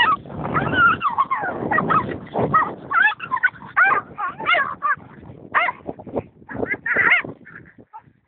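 Dogs in a fight yelping and whining: a rapid string of short, high-pitched cries that thins out near the end.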